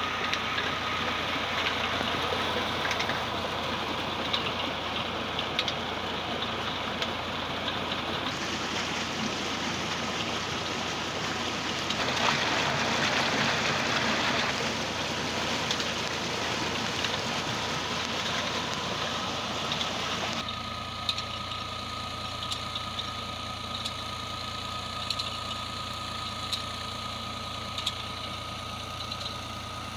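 Water from a tube-well turbine pump gushing out of a pipe and splashing into a concrete tank, over the steady running of a Fiat 480 tractor's diesel engine, which is driving the pump. The splashing is loudest a little past ten seconds in. About twenty seconds in, the water noise drops back and the engine is heard more plainly.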